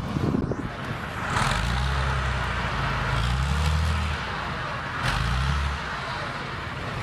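Heavy diesel engine of an eight-wheeled military truck tractor pulling hard as it climbs over a dirt mound. The engine note swells from about a second and a half in to about four seconds, eases, then rises again briefly about five seconds in.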